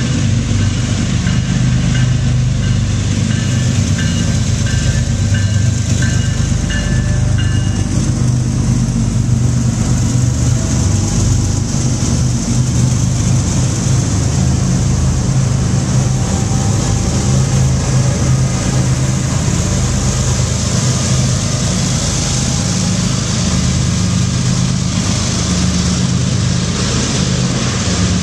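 BNSF GE ES44DC diesel locomotive powering a long double-stack intermodal train out of the station, its engine running under load, with a bell ringing for about the first eight seconds. After that the stack cars pass close by with a steady wheel-and-rail noise.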